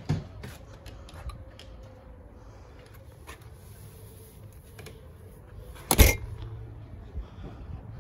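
A front door being handled and pulled shut, with one loud thud about six seconds in, among small clicks and rustles.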